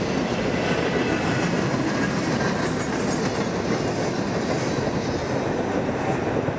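Steel-wheeled coal hopper cars at the tail of a CSX unit coal train rolling past, a steady rumble and clatter of wheels on rail.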